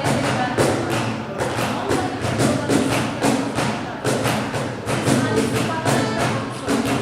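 A Turkish song with a steady thumping percussion beat under the melody.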